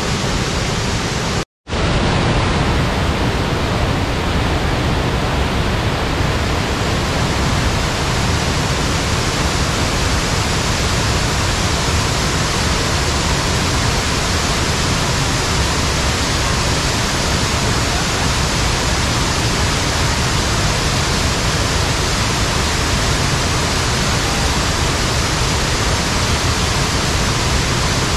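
Waterfall: a steady, loud rush of falling water with no change in character, broken once by a momentary dropout about one and a half seconds in.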